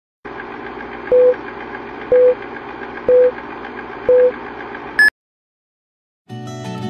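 Film-leader countdown sound effect: a short low beep once a second, four times, over a steady noise bed, then a higher final beep that cuts off into silence. Strummed acoustic guitar music starts near the end.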